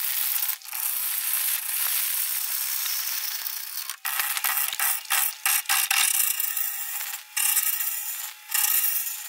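Turning gouge cutting into a spinning spalted beech bowl blank on a wood lathe, roughing it to shape: a rasping hiss of the tool on wood. In the second half it stutters on and off, typical of an interrupted cut on a blank not yet trued round.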